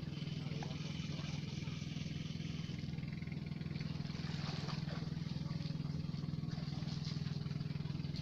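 A steady low mechanical drone, like an engine running at constant speed, with no change in pitch.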